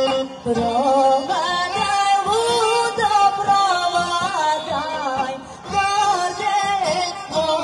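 A woman singing a Rhodope folk song over a band of kaba gaida bagpipes and a tapan drum; her voice wavers and glides in long ornamented notes above the pipes' sustained tones and a steady drumbeat.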